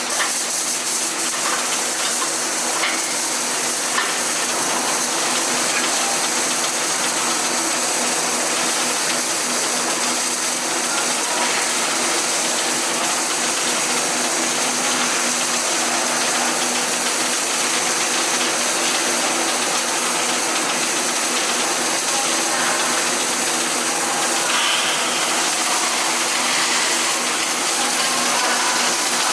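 Steady arc-welding noise: a continuous crackling hiss over the steady hum of a welding machine.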